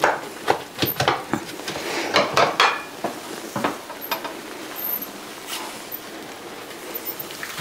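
A utensil clinking and scraping against a frying pan while an omelet cooks. A quick run of knocks comes in the first few seconds, then it goes quieter, with a light sizzle underneath.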